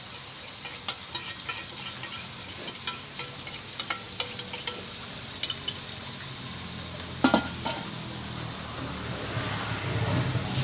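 Garlic and shallots sizzling in hot oil, stirred with a spatula that scrapes and clicks against the pan again and again, with two louder knocks about seven seconds in.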